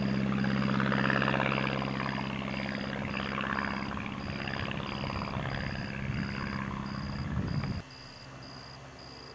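Continental A-65 four-cylinder air-cooled engine and propeller of a light homebuilt airplane flying overhead: a steady drone that grows fainter after a couple of seconds. The sound cuts off abruptly near the end, leaving only a faint background.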